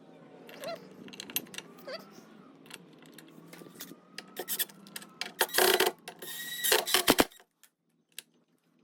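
Soft clicking and scraping, then a cordless drill-driver running in two short bursts about five and a half and six and a half seconds in, a steady whine over a rattling buzz: screws being driven back through the strike plate into the plugged holes.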